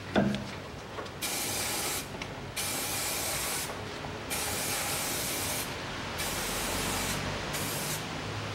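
Aerosol spray can hissing in repeated bursts of about a second with short pauses between, lubricating the splines of a CV drive shaft before it goes into the wheel hub. A brief falling pitched sound comes right at the start.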